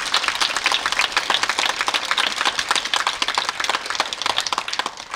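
Audience applauding, a dense patter of clapping that dies away near the end.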